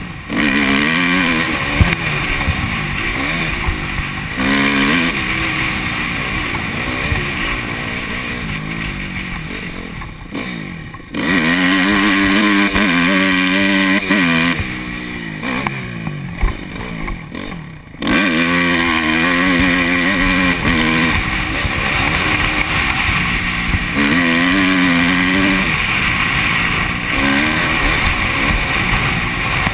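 2005 Honda CRF250's single-cylinder four-stroke engine running hard as the bike is ridden on a dirt track, its pitch rising and falling with the throttle and gear changes, with wind noise on the microphone. It eases off twice, about ten and seventeen seconds in, each time picking up again sharply under acceleration.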